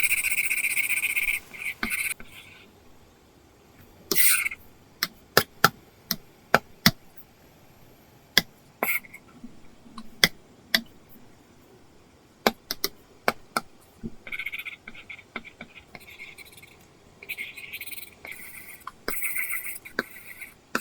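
Apple Pencil drawing on an iPad fitted with a paper-feel matte screen film. The pencil tip makes scratchy strokes in runs at the start and again from about the middle to the end, with many single sharp taps in between.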